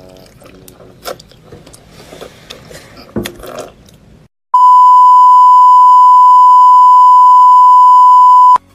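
Test-card beep: a single loud, steady, high-pitched tone, the kind that goes with TV colour bars. It starts about halfway in, holds for about four seconds and cuts off suddenly. Before it, faint clicking and chewing from someone eating raw shellfish.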